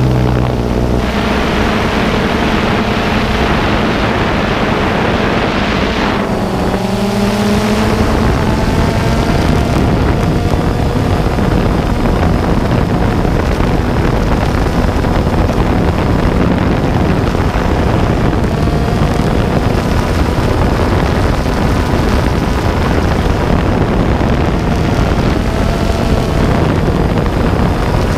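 A drone's electric motors and propellers whining in flight, heard from the onboard camera with wind rushing over its microphone. The pitch drops at the start, dips and climbs again about six to seven seconds in, then holds steady.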